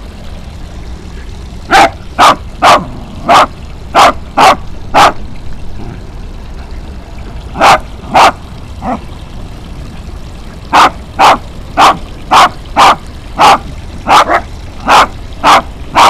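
A dog barking repeatedly in bouts: a quick run of about seven barks, a short pause, two more, then a steady string of about a dozen barks at roughly two a second.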